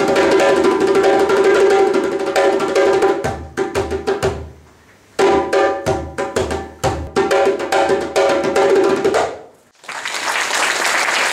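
Djembe played with bare hands: a fast run of slaps and ringing tones, breaking off briefly about four and a half seconds in, then resuming and ending about nine seconds in, followed by applause.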